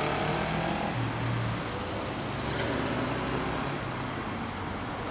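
A motorcycle engine pulling away up the street, its exhaust note fading out in the first couple of seconds, leaving steady road traffic noise from the cars around it.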